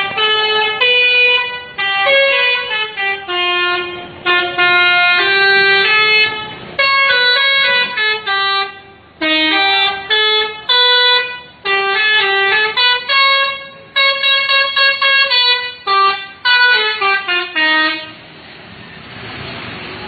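Tour bus 'telolet' musical air horn playing quick tunes of stepped notes in phrases with short gaps. It stops about two seconds before the end, and a steady hiss follows.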